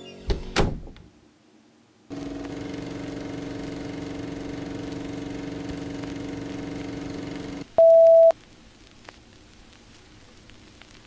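Transition sound effect: a steady electrical hum with several tones that starts about two seconds in and cuts off after about five and a half seconds, then a single loud beep of about half a second, then faint crackle with a few ticks.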